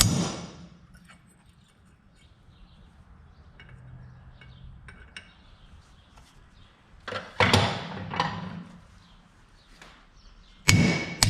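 Hammer blows on a steel punch against a hinge plate on an anvil, punching a piece out of its hole, each strike with a metallic ring. One hard blow comes at the start, a few light taps follow, then a run of about five hard blows in the last few seconds.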